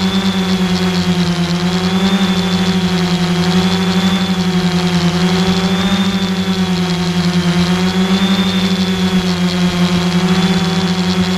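DJI F450 quadcopter's brushless motors and propellers whining steadily, heard up close from the camera on the airframe. The pitch wavers slightly up and down every couple of seconds as the motors change speed in the hover.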